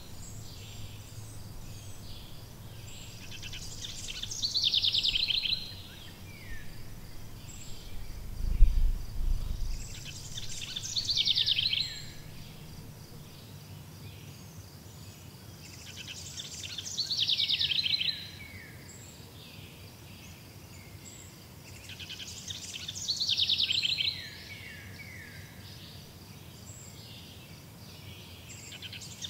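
A songbird sings the same short, trilling phrase that ends in falling notes, about every six seconds, over a faint steady insect buzz. A low thump comes about nine seconds in.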